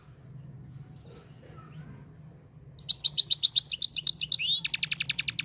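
Moroccan goldfinch (European goldfinch) singing: about three seconds in, a loud outburst of rapid, high twittering notes begins, then runs into a second, faster series of repeated notes near the end.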